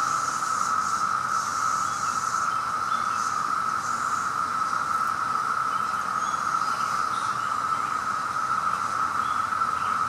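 Chorus of 17-year periodical cicadas (Magicicada): a steady, unbroken high drone from many males calling at once.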